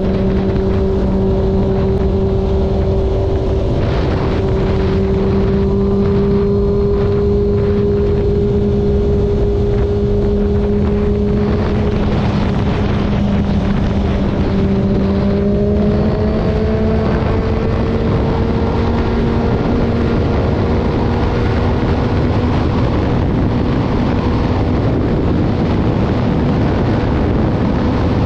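Motorcycle engine running at a steady cruise under heavy wind noise on the microphone; its pitch rises slowly about halfway through as the bike speeds up.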